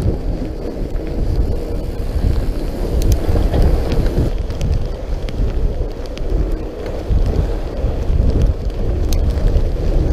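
Wind buffeting the camera's microphone as a fatbike rides over snow, an uneven rumble that swells and dips, with scattered light clicks and rattles from the bike.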